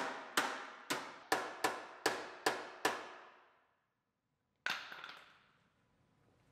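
Hammer striking the steel end of a car's front frame rail, a steady run of ringing metallic clangs about three a second, straightening the bent ears and bracket back into place. The blows stop after about three seconds, and a single knock follows near five seconds.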